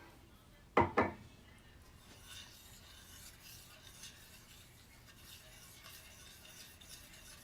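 A spoon stirring buffalo sauce of melted butter and hot sauce in a pan: two sharp clinks about a second in, then soft, steady scraping.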